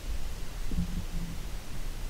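Low rumbling noise with faint rustling, and a short low hum twice near the middle.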